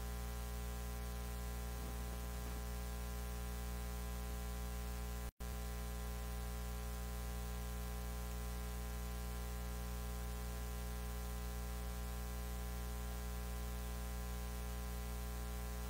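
Steady electrical mains hum with many overtones under a constant hiss, cutting out completely for an instant about five seconds in.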